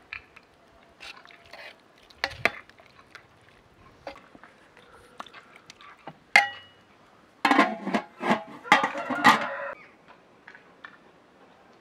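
A metal skimmer ladle clinking and scraping against a large aluminium cooking pot: scattered light clicks, one sharp ringing clink about six seconds in, then a busy flurry of clatters for a couple of seconds.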